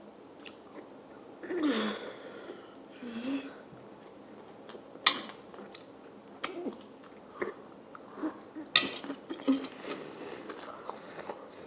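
Eating sounds: scattered clicks of utensils on dishes and chewing, with a couple of short vocal sounds about two and three seconds in.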